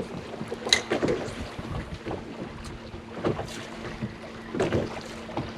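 Wind buffeting the microphone aboard a small fishing boat, with a steady low hum and a few short knocks and splashes.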